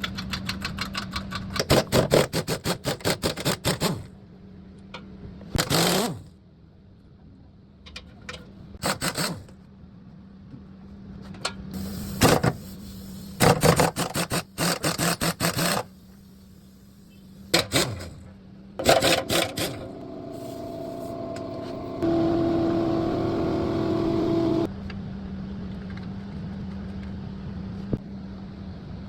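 Mechanical workshop noise: several runs of rapid, evenly spaced clicking and a few single knocks over a steady low hum, with a steady whirring tone for about two and a half seconds after the twenty-second mark.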